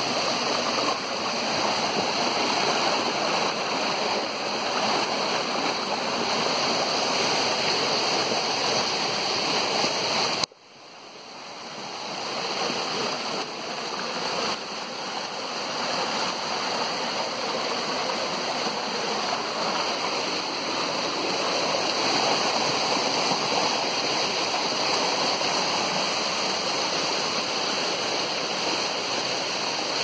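Waterfall rushing, a steady roar of falling and splashing water. About ten seconds in, the sound cuts out suddenly and swells back over the next few seconds.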